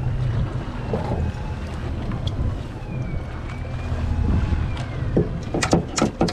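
Steady low rumble of a small fishing boat idling at sea, with wind on the microphone. Near the end comes a quick run of sharp splashes and clacks as the jig and line go back into the water at the hull.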